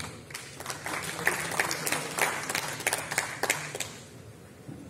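Audience applauding briefly, separate claps standing out, dying away after about four seconds.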